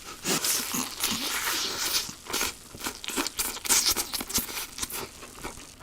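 Crispy fried food being cut apart, with irregular crackling and crunching of the batter that thins out near the end.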